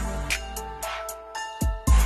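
Background music with a beat: held notes over a deep bass that drops out about halfway, then two sharp drum hits near the end.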